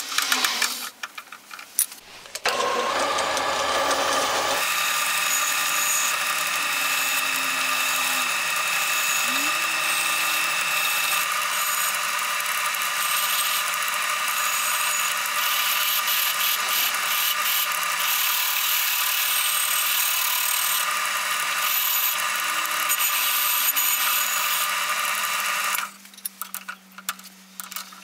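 Clicks of a wire wheel brush being fitted into a drill press chuck. About two and a half seconds in, the drill press starts and runs steadily, its wire wheel scrubbing the rust off a steel axe head. It stops about two seconds before the end.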